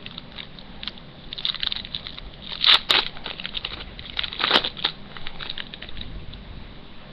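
Foil wrapper of a Yu-Gi-Oh Battle Pack booster pack crinkling as it is torn open by hand, with the loudest crackles about three and four and a half seconds in.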